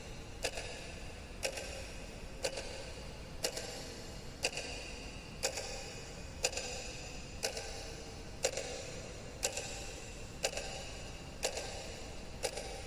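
Wall clock ticking steadily, about one tick a second, each tick with a short ring, over a faint low hum.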